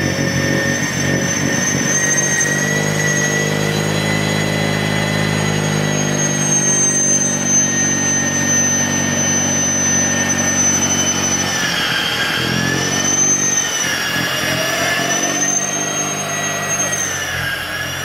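EGO 24-inch battery-powered snowblower running through heavy, wet snow: a steady high electric whine over a low motor drone, its pitch dipping and recovering a few times in the later part, growing somewhat fainter near the end.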